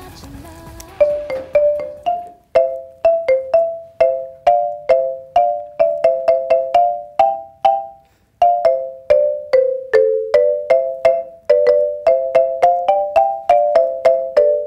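Marimba struck with two yarn mallets: a quick, rhythmic run of short wooden notes, mostly two notes sounding together, with a brief pause a little past the middle.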